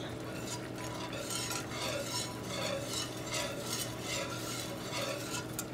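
Wire whisk beating a thick cream-and-Parmesan Alfredo sauce in a pan, a steady swishing at about two or three strokes a second.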